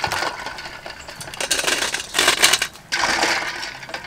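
Quail eggs clicking and clattering against one another and a metal bowl as they are washed by hand, in uneven bursts with a short break about three seconds in.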